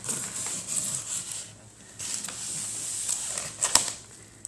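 Shipping-box packaging being handled: rubbing and scraping in two stretches with a short lull between, and a sharp knock near the end.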